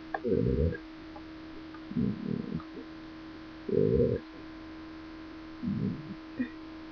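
A woman burping repeatedly: four short, low burps about every one and a half to two seconds, over a steady electrical hum. It is chronic burping that an upper endoscopy has not yet explained.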